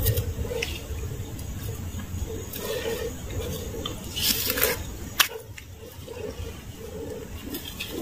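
Muddy puddle water splashing and sloshing as thin sticks are pushed into the mud by hand. There is a louder splash about four seconds in and a sharp click just after it.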